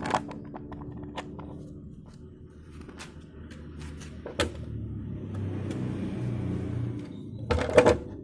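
Samsung washing machine running with a low hum that swells for a couple of seconds in the middle, amid scattered clicks, one sharp knock and a cluster of loud knocks near the end.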